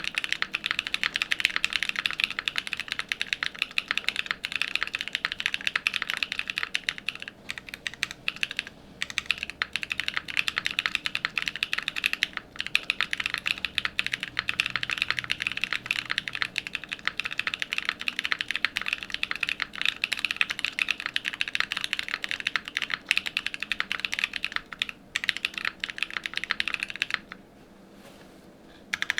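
Continuous fast typing on an LM60N 60% mechanical keyboard with an FR4 plate, case foam, factory-lubed BSUN Strawberry Cheesecake switches and GMK keycaps: a dense stream of key clacks. The typing breaks briefly a couple of times and stops for about two seconds near the end.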